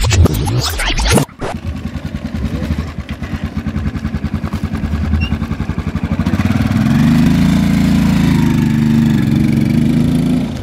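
Motorcycle engine running with a quick, even pulse, then revving up to a louder, steadier note from about six seconds in as the bike pulls away. A loud burst of noise fills the first second or so.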